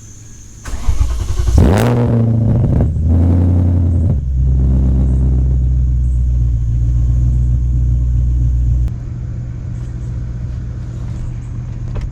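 BMW E39 540i's 4.4-litre V8, with a straight-pipe exhaust into a Summit Racing muffler, starting up. It cranks, catches about a second in and flares in revs, gives one more short rev, then settles into a steady low idle that gets quieter about three-quarters of the way through.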